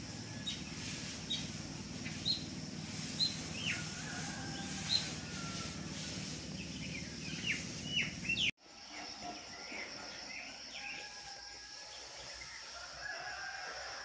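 Birds calling: short high chirps about once a second, a few of them sliding steeply downward, over a steady low background hum. The sound cuts off abruptly about eight and a half seconds in, and fainter chirps carry on after.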